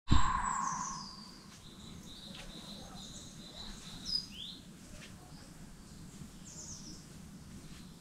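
Wild birds calling in bare trees: scattered short high chirps and falling whistles, with one louder rising chirp about four seconds in, over a steady low background noise. A loud sound at the very start fades out within about a second.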